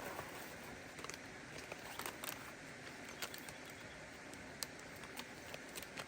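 Plastic MRE packaging being handled and opened: irregular sharp crinkles and clicks over a steady faint hiss.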